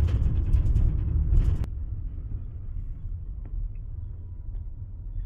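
Road and engine noise inside a moving car's cabin: a loud low rumble with hiss. About a second and a half in it cuts off abruptly to a quieter, steady low hum with a few faint ticks.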